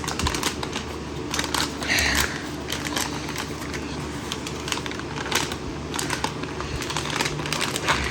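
A shipping package being handled and pulled at by hand to open it without scissors: irregular crinkling, crackling and clicking, over a low steady hum.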